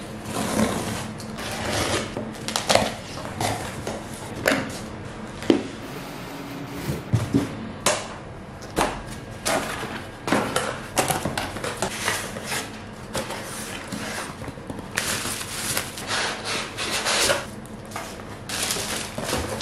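Close-up handling of a cardboard box: packing tape being picked at and peeled off, then cardboard flaps being opened and paper packing rustled. Irregular scrapes, rips, crinkles and light knocks.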